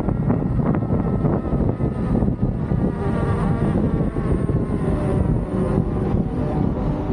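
Wind rumbling on the microphone while riding an electric unicycle, over the steady whine of its hub motor, which drifts slightly in pitch with speed.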